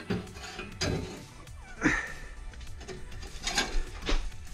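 Exhaust clamp and pipe being handled and fitted over the muffler-delete joint: a handful of scattered metal knocks and scrapes.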